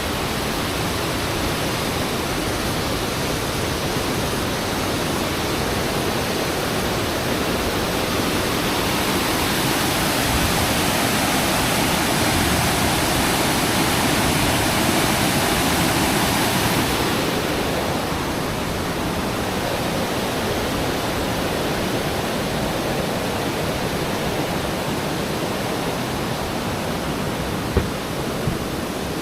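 Steady rush of falling water from a waterfall, swelling a little louder for several seconds midway.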